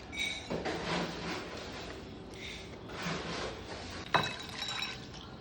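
Kitchenware being handled: scattered scraping and shuffling noises, then a sharp knock about four seconds in with a brief ringing clink.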